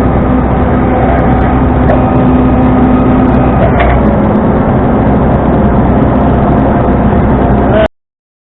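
Tow truck driving with steady engine and road noise; the engine hum drops a little in pitch about four seconds in. The sound cuts out completely for a moment near the end.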